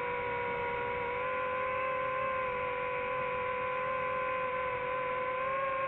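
FPV quadcopter's motors and propellers whining at a steady pitch as the drone cruises at constant throttle.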